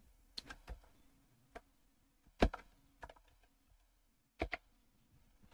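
Scattered clicks from a computer keyboard and mouse: about eight sharp, separate taps spread unevenly, the loudest about two and a half seconds in and a close pair near four and a half seconds.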